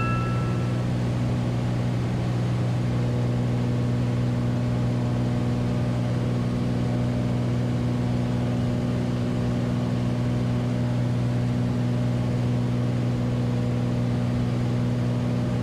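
Cessna Turbo 206H's turbocharged six-cylinder engine and propeller droning steadily in flight, heard from inside the cabin.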